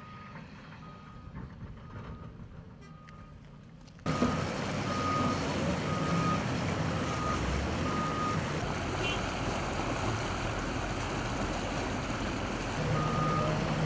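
Reversing alarm on heavy earthmoving machinery, beeping at one pitch about once a second over a steady engine rumble. About four seconds in the sound jumps suddenly louder and noisier; the beeping goes on, pauses for a few seconds, then starts again near the end.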